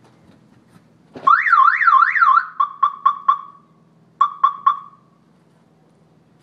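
A car alarm goes off about a second in: three fast rising-and-falling wails, then a quick run of short chirps, a brief pause and three more chirps. Under it, the 1989 Nissan 240SX idles faintly and steadily through its Apexi exhaust.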